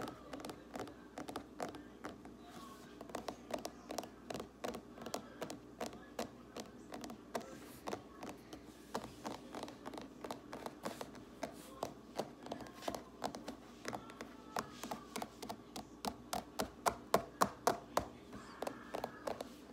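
Fingers tapping quickly and unevenly on a hard surface for ASMR, about three taps a second, with the loudest run of taps near the end.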